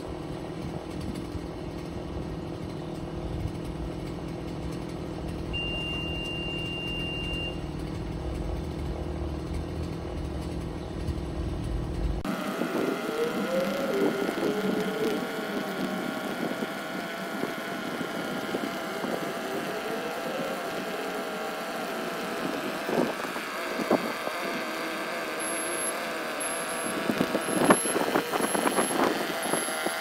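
Gusty wind buffeting the microphone, then, after a sudden change, the Haulotte 4527A boom lift's power unit running as the boom is lowered, with a few knocks. From about four seconds before the end its high motion alarm beeps about once a second.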